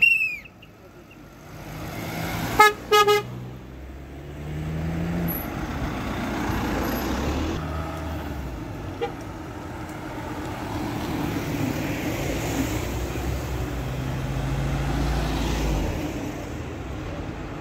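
Two short car horn toots about three seconds in, then a motor vehicle's engine running with road noise for the rest, rising and falling at times. A short high chirp at the very start.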